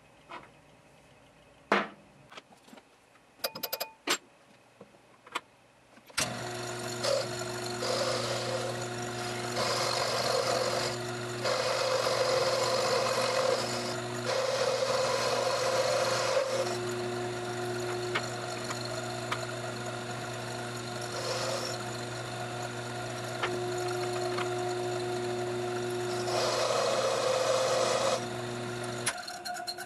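A few sharp clicks and taps of metal parts being set into a micro lathe's quick change tool post. About six seconds in, the Taig micro lathe's motor starts and runs with a steady hum. Over it, in several passes, comes the scraping noise of the cutting tool working the spinning workpiece, and the motor shuts off suddenly near the end.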